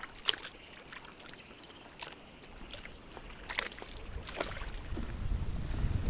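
Small waves lapping and splashing against lakeshore rocks, with a few light splashes. A low rumble builds in the second half.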